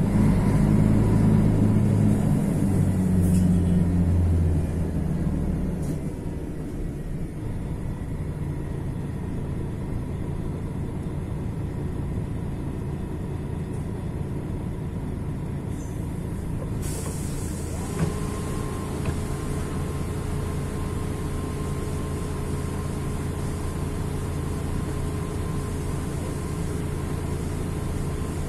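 Mercedes-Benz OM 457 LA inline-six diesel of an articulated BRT bus running. It pulls loud for about the first four seconds, then drops back to a quieter steady run. About two-thirds of the way through, a hiss of air comes in, and a steady high tone sounds after a click.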